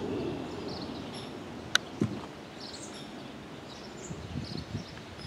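Quiet outdoor ambience by the water with faint high chirping scattered throughout. A single sharp click comes a little under two seconds in, followed by a soft thump, and there are a few soft rustles near the end.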